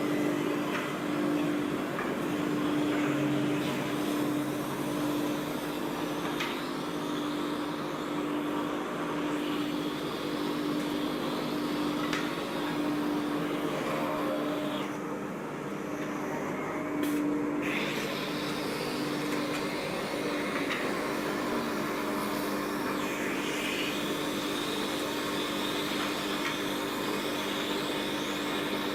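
CNC wood lathe running, its 7.5 kW AC servo spindle giving a steady hum under a changing hiss of cutting, with a few sharp clicks along the way.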